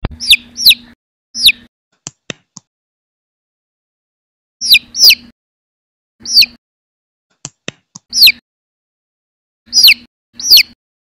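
Baby chick peeping: high, loud peeps that slide down in pitch, about nine of them, singly and in pairs, with a few short sharp clicks between them.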